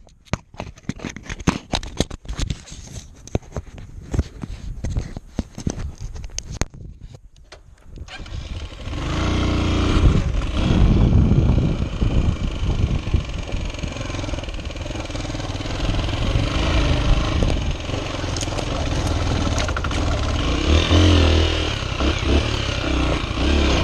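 A run of irregular clicks and knocks, then about eight seconds in a Honda XR 125's single-cylinder motorcycle engine comes in and runs steadily.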